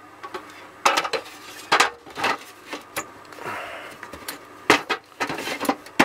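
Hard plastic parts of a Corona dehumidifier clicking and knocking as they are handled and fitted back together, with a brief scraping rub about halfway through.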